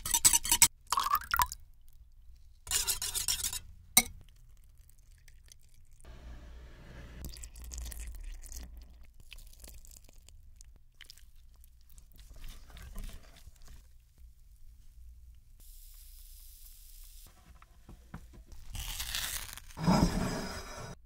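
Close-miked wire whisk beating batter in a bowl in quick bursts, then a long, quiet stretch of thick batter pouring and dripping. Near the end there is a louder, fuller sound.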